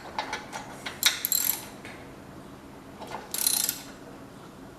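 Ratchet of a click-type torque wrench being worked on a cylinder head bolt, in short runs of rapid clicks about a second in and again near three and a half seconds, while the head bolts are torqued down on a new head gasket.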